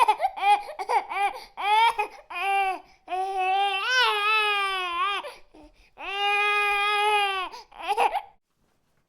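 A baby crying hard. It starts with a quick run of short cries, about three a second, then two long drawn-out wails, a few more short cries, and it stops for the last second.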